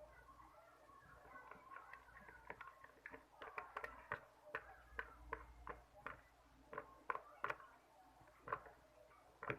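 Glue-and-detergent slime being stirred in a container: irregular sharp clicks and taps of the stirrer against the container and the sticky mixture, starting about three seconds in and coming several times a second.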